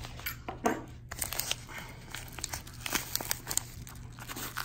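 Yellow padded bubble mailer crinkling and crackling in irregular bursts as it is handled.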